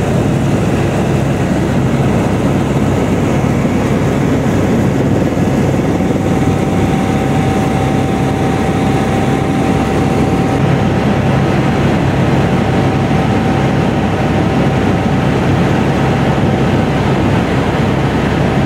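Inside the cabin of a Squirrel 2 twin-engine helicopter in flight: a loud, steady drone of rotor and turbines. A thin, steady whine comes in about six seconds in.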